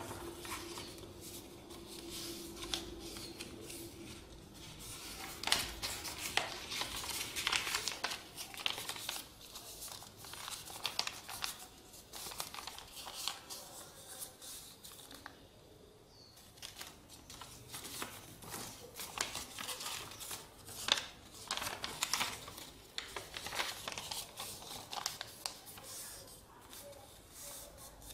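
A square sheet of paper being folded and creased by hand into an origami crane: irregular crisp rustles and crackles, with a quieter stretch about halfway through.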